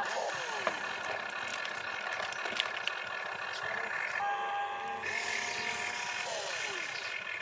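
Radio-controlled model excavator working its boom and arm: motor whine in several steady tones, the pitch sliding down as a motor slows near the start and again near the end, with a couple of sharp clicks.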